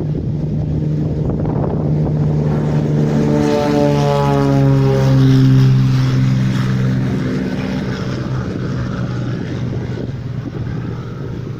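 Small propeller airplane passing by. Its engine and propeller drone grows louder, drops in pitch about four to six seconds in as it goes past, then fades away.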